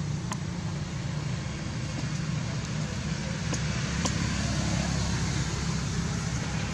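Steady low rumble and hiss of background noise, with a few faint clicks.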